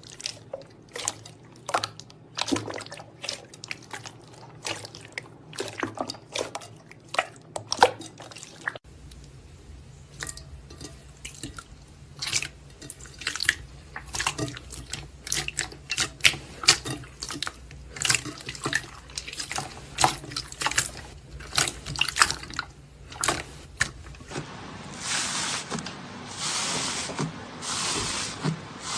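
Slime being squeezed and poked, making a fast series of wet, sticky clicks and pops. Near the end the clicks give way to softer, airy squelching bursts.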